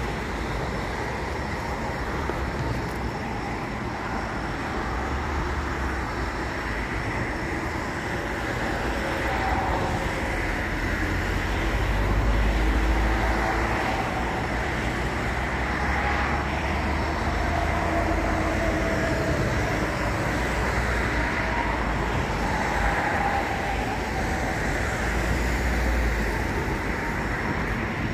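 Road traffic on a multi-lane road: a steady rush of passing cars and tyres, with a low rumble underneath and faint engine tones rising and falling as vehicles go by.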